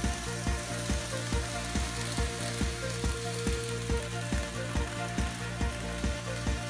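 N-scale model trains running on the layout track: a steady hissing rumble of motors and wheels, with regular clicks about twice a second as the wheels cross the rail joints.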